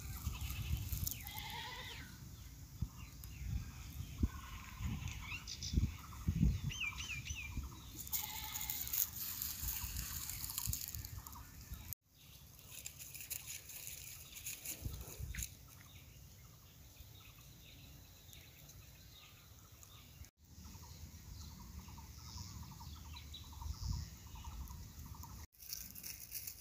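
Outdoor rural ambience with a few faint, short animal calls in the first half and low rumbles on the microphone; the sound breaks off abruptly three times.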